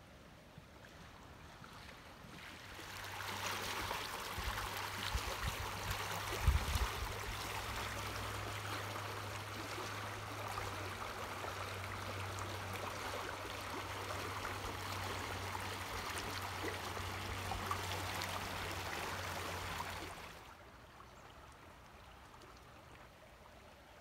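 Fast river water running over a shallow riffle: a steady rushing hiss that swells in about three seconds in and drops away suddenly about twenty seconds in. A few low thumps come near the start of it, the loudest about six and a half seconds in.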